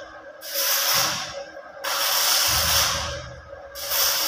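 Arc welding on a mild steel door frame: the arc crackles and hisses in runs of a second or so, stopping and striking again three times.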